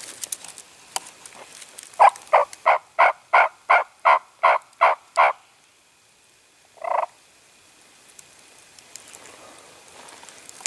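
A series of about ten turkey yelps, evenly spaced at roughly three a second, followed a second and a half later by one more yelp.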